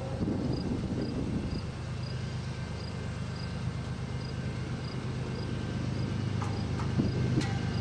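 Diesel locomotives of an approaching freight train running with a steady low rumble that slowly grows louder, in a gap between horn blasts. A faint high chirp repeats about twice a second throughout, and a few sharp clicks come near the end.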